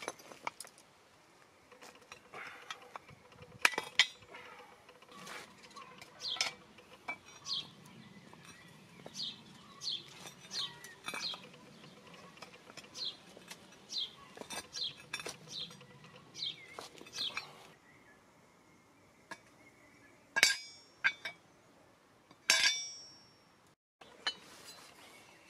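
Pieces of scrap metal clinking and knocking together as they are handled: a long run of short, bright clinks, then a few louder knocks near the end, one of them ringing briefly.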